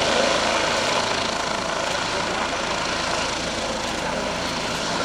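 Military helicopter's turbine and rotor running, a steady, even noise with a low hum underneath.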